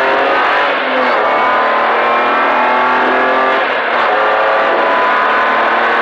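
BMW E30 rally car's engine pulling hard under full acceleration, heard from inside the stripped cabin, its pitch climbing steadily. Twice, about a second in and again about four seconds in, it briefly dips as it shifts up a gear.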